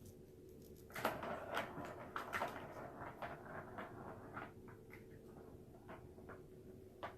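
A kitten pawing at and shifting collars makes faint rustling and light clicks, busiest in the first few seconds and sparser after, over a steady low hum.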